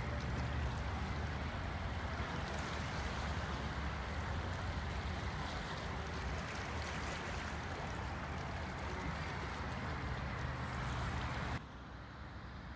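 Steady rush of sea waves washing against a rocky shore, with low rumbling wind noise. It cuts off abruptly a little before the end, giving way to a quieter background.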